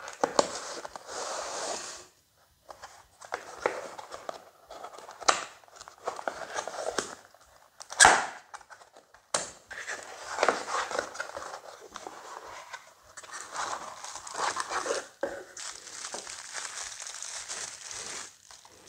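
Cardboard product box being opened and handled by hand: card sliding, scraping and rustling, with a few sharp knocks, the loudest about eight seconds in. Near the end, a bubble-wrap bag crinkles as the metal baseplate is lifted out.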